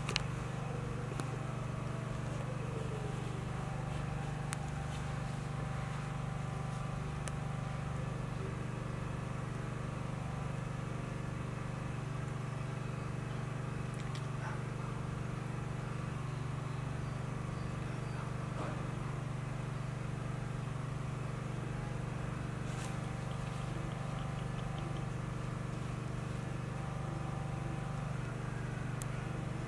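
A motor running with a steady low hum, unchanging in pitch and level, with a few faint clicks on top.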